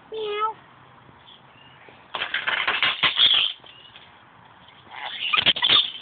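Scaly-breasted lorikeet chattering in two bursts of rapid, rasping sound, each about a second and a half long: one a couple of seconds in and another near the end.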